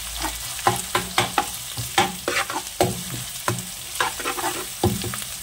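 Sliced onions, garlic and ginger-garlic paste sizzling in hot oil in a metal pan, stirred with a spatula that scrapes and knocks against the pan about three times a second.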